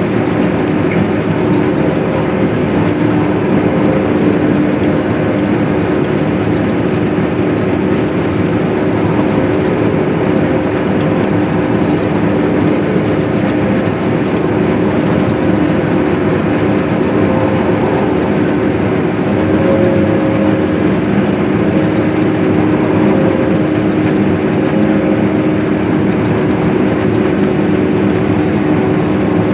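Case IH swather running steadily while cutting hay, a constant loud drone with a held hum.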